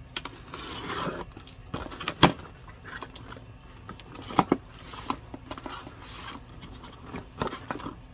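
A cardboard shipping box being opened and its contents handled: rustling and crinkling of packaging with scattered sharp clicks and taps, the sharpest about two seconds in.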